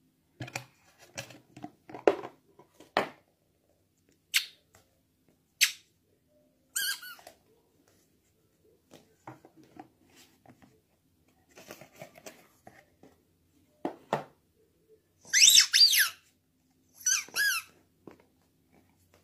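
Rubber squeaky dog toys being squeaked: a few scattered squeaks and soft knocks and rustles of handling, then two loud bursts of high squeaks near the end.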